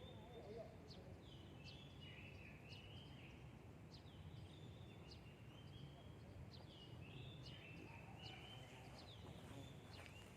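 A bird calling over and over, about once a second: each call a quick falling whistle followed by a short held note, faint over a steady low background hum.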